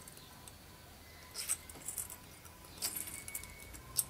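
A small hand file scraping briefly on a metal jump ring to take off a burr, with light metallic clinks. It comes in two faint short spells, about a second and a half in and about three seconds in.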